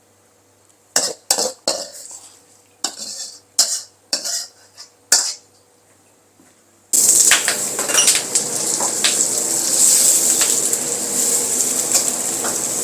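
A metal ladle knocks and clatters against a wok about eight times, then about seven seconds in a loud, steady sizzle starts suddenly as food goes into hot oil in the wok and is stir-fried.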